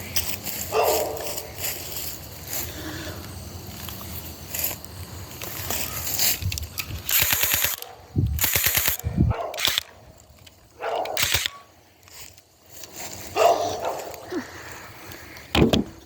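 Electric gel-ball (Orbeez) blaster firing two short bursts of rapid shots about seven and eight and a half seconds in, among other scattered clicks and knocks.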